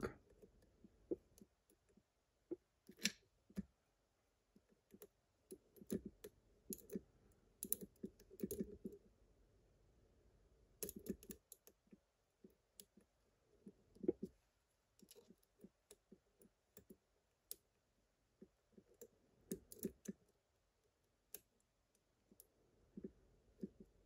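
Faint, irregular clicks and light scrapes of a steel lock pick working the wafers of a small slider cam lock, with a tension wrench held in the keyway.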